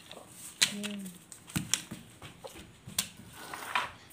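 Hard plastic toys knocking and clacking on a concrete floor: a few sharp separate knocks, the loudest about half a second in, others around a second and a half and three seconds in. A child's voice is heard briefly about a second in.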